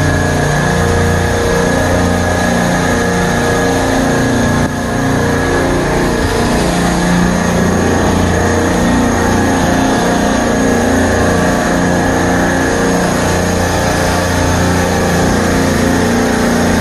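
Supermarket refrigeration rack compressors running: a loud, steady mechanical hum with a constant hiss over it.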